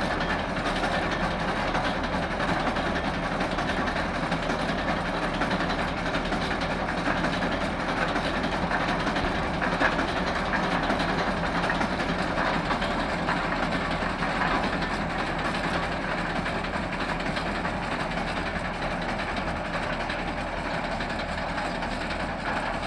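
Tractor engine running steadily at a constant speed, a continuous mechanical din with a low hum underneath that never stops or changes.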